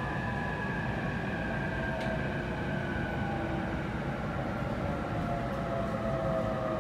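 Inside an E531 series electric train: the Hitachi IGBT-VVVF inverter and traction motors whine in several steady tones, slowly falling in pitch, over a steady rumble of wheels on rail as the train slows into a station.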